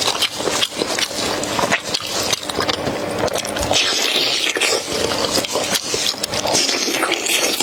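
Close-miked eating: biting and chewing braised lamb chops, a dense run of wet clicks and scraping sounds.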